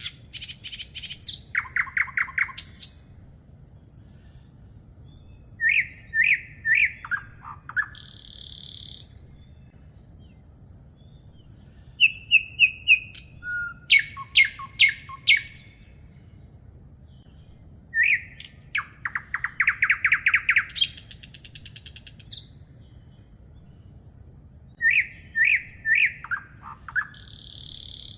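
Songbirds singing: phrases of short clear whistled notes, quick trills and high buzzy notes, repeated every few seconds.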